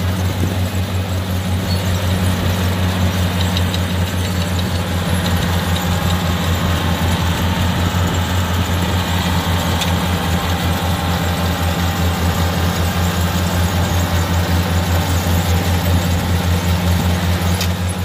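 Kubota R1-551 combine harvester running steadily as it cuts and threshes rice: a loud, even engine drone with a fast pulse to it.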